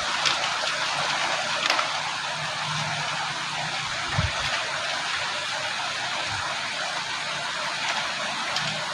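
Steady rushing of river water, with a brief low thump about four seconds in.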